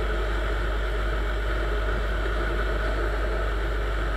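Viper 200 motorcycle's engine running steadily at cruising speed, heard from the rider's seat, with a steady low rush of wind and road noise.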